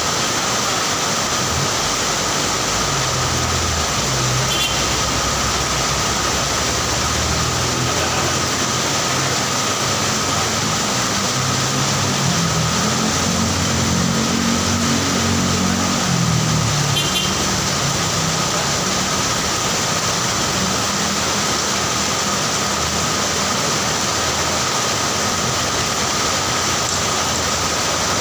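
Heavy rain falling in a steady hiss, with vehicle engines running on the road underneath it, loudest about halfway through as one passes.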